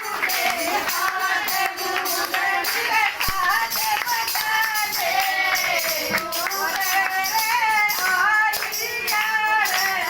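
Haryanvi devotional folk song (bhajan): a voice singing a gliding melody over a steady, crisp percussion beat.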